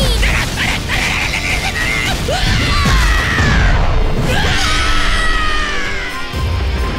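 Animated fight-scene soundtrack: music over rumbling impacts, with a screaming voice that falls away in pitch twice, about two and a half and four and a half seconds in.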